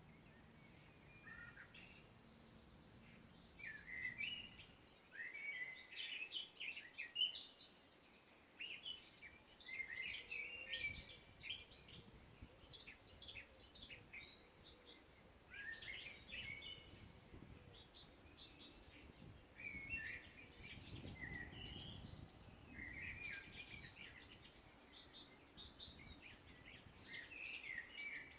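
Songbirds singing in a forest: short, quick twittering phrases, one after another every couple of seconds, over a faint background hush.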